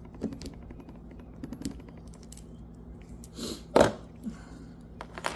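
Light metallic clicks and clinks of small brake hardware such as washers being handled, with one louder sharp metal knock a little under four seconds in.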